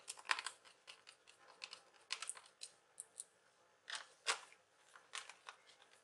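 Faint, irregular small clicks and scrapes of fingers handling a screw on a laptop's plastic bottom cover, with a louder click about four seconds in.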